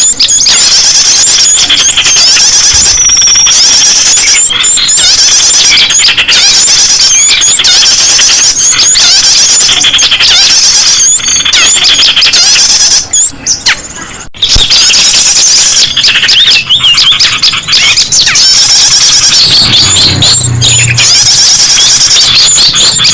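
A loud, dense chorus of many small songbirds chirping, twittering and squeaking at once, a bird-luring track of mixed small-bird calls. It briefly thins out about two-thirds of the way through.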